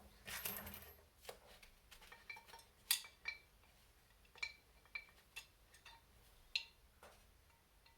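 Small metal model parts and hand tools being handled, a series of light, irregular clicks and clinks, some with a short metallic ring, with a louder knock about three seconds in and again near the end.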